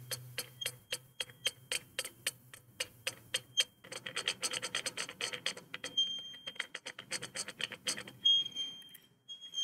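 Taps of a wooden stick on the ISD1820 module's condenser microphone, passed straight through to its small speaker in feed-through mode: a string of sharp clicks, a few a second at first and quicker from about four seconds in. A faint hum and a high feedback whistle come and go underneath, the whistle strongest near the end, because the microphone and speaker sit so close together.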